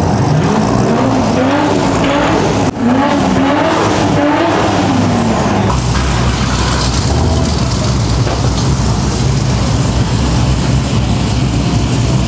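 Loud performance car engines revving, the pitch rising and falling several times in the first few seconds, then a steady deep rumble of engines running.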